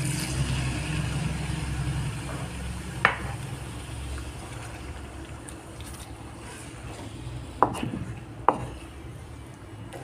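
Water pouring into a hot wok of beef mince and capsicum, followed by a wooden spoon stirring the mince, with three sharp knocks of the spoon against the pan: one about three seconds in and two close together near the end.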